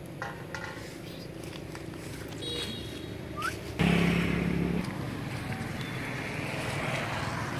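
A motor vehicle passing close by: a sudden loud rise in engine and road noise about four seconds in that fades slowly over the following seconds.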